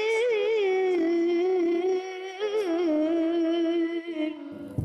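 A child qari's high voice in Quranic recitation (tilawah), holding long melismatic notes with wavering ornaments. There is a short breath about two seconds in, then a second held phrase that ends shortly before the close.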